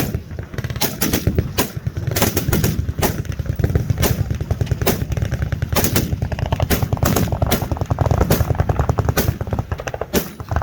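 Several machine guns firing at once in overlapping bursts, a continuous irregular rattle of shots with louder single reports standing out throughout.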